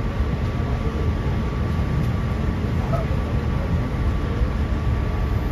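Sydney Trains K set double-deck electric train running between stations, heard from inside the carriage: a steady low rumble with a faint steady whine.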